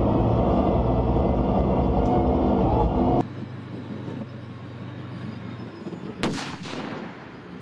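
Loud steady rumble of an armoured vehicle's engine and tracks heard from inside the crew compartment, cutting off about three seconds in to a quieter rumble from outside. About six seconds in comes a single sharp blast as a mine goes off under the BMR-3M's roller trawl.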